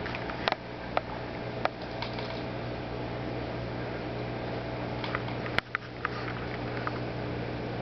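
Steady electric hum and hiss of running aquarium equipment, with a scattering of small sharp clicks in the first two seconds and again about five to seven seconds in.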